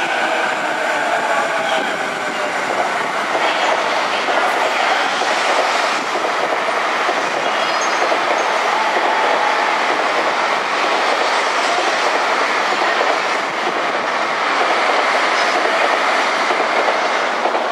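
Keihin-Tōhoku Line E233-series electric commuter train running along the platform, its wheels clattering steadily over the rail joints.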